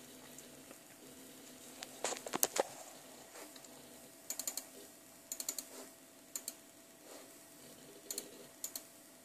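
Scattered short clicks of computer input, single and in quick groups, as a browser is being opened, over a faint steady hum.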